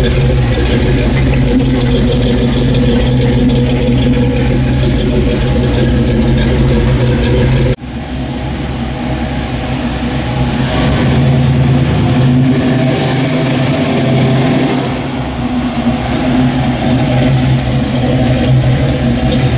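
The 1969 Chevrolet C10's 350 cubic-inch ZZ4 crate V8 running through headers and a dual exhaust, steady at idle at first. After an abrupt cut about eight seconds in, it runs at low speed as the truck drives slowly past.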